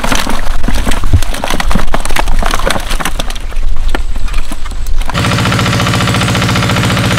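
Live fish poured from one plastic bucket into another, thrashing, slapping and knocking wetly against the plastic in a dense, irregular clatter. About five seconds in this cuts off and a small engine runs at a steady drone.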